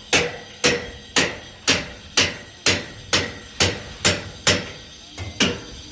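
Hammer striking in a steady rhythm of about two blows a second, each blow sharp with a short ring. There is a brief pause about five seconds in, then two more blows.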